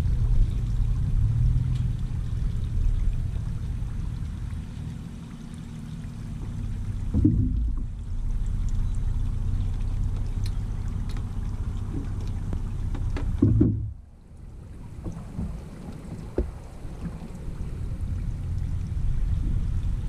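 Steady low rumble around a fishing kayak at the ramp, with two loud knocks on the kayak, about seven seconds in and again about six seconds later, as it is handled at the water's edge.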